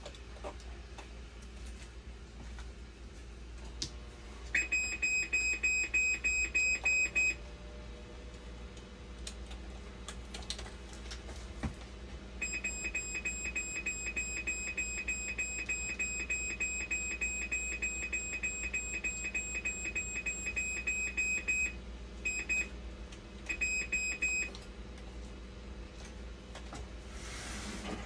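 Hemodialysis machine alarm beeping rapidly at a high pitch in four bursts: one of about three seconds, a long one of about nine seconds, then two short ones. Under the beeping runs the machine's steady low hum.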